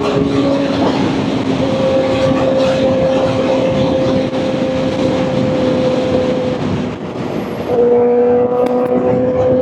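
Kawasaki Ninja ZX-4RR's 399 cc inline-four engine running at a steady high note under way, with wind rushing past. The note breaks off briefly about seven seconds in, then picks up again slightly lower and climbs.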